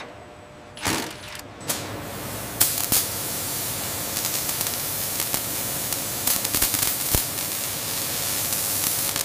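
Steady hiss of a machine cutting head slicing sheet metal, with scattered crackles from the flying sparks. A couple of short bursts of noise come about a second in, before the hiss sets in.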